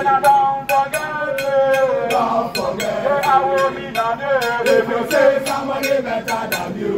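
Male voices singing a chant-like song together over music with a steady beat, about three beats a second.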